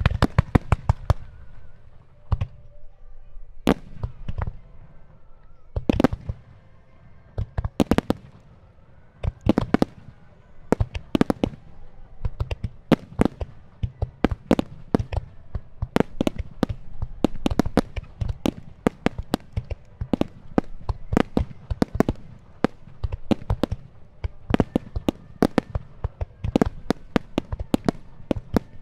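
Star mine fireworks barrage: aerial shells bursting in quick, irregular succession, a few sharp bangs a second growing denser later on, over a continuous low rumble of launches and echoes.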